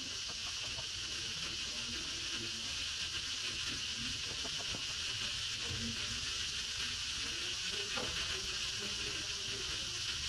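A steady, high-pitched drone of insects.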